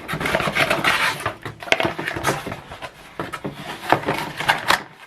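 Contents of a printer box being handled and pulled out: continuous rustling and scraping of packaging with scattered sharp taps and knocks.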